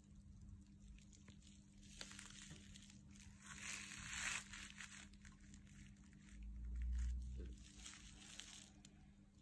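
Faint rustling and scraping of a cricket bat being handled and turned onto its edge on artificial turf, loudest about two to four seconds in. A low muffled bump comes about seven seconds in, over a steady low hum.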